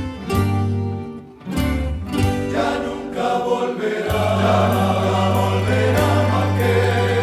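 Colombian rondalla of plucked strings playing a slow serenata-style song, with a choir of voices singing. The music dips briefly just over a second in, then fills out into a fuller, sustained passage.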